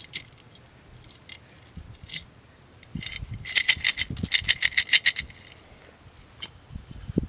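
Coins and beads jingling inside a clay pot as it is tipped and shaken: scattered clinks, then a dense run of metallic clinking for about two seconds in the middle, with a few dull knocks of the pot being handled.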